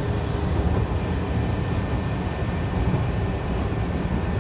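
Steady low rumble of a Shibayama Railway 3500-series electric train running along the line, heard from inside the passenger car.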